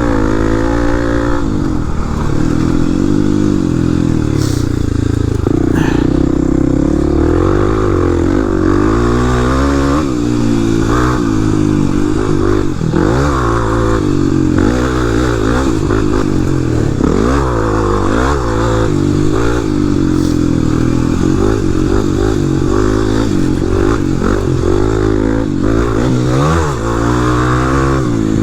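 Dual-sport dirt bike's single-cylinder four-stroke engine revving up and falling back again and again as it is ridden hard around a dirt track, throttling on and off through the turns and jumps.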